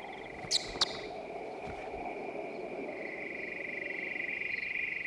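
Night insect chorus with crickets trilling steadily in a high, finely pulsing tone. About half a second in come two short, high sweeping chirps.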